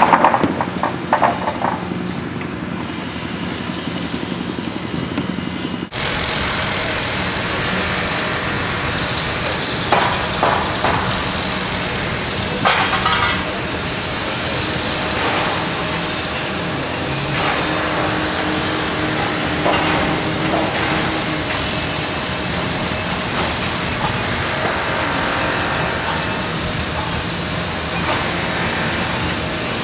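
Construction-site machinery: a steady engine hum, likely a pressure washer unit, for the first few seconds. About six seconds in it changes abruptly to a louder, even construction-site din with scattered knocks.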